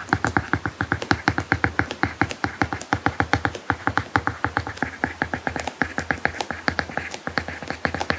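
Apple Pencil tip tapping and scratching on an iPad Pro screen fitted with a paper-like matte protector during handwriting: quick, irregular clicks, about eight to ten a second.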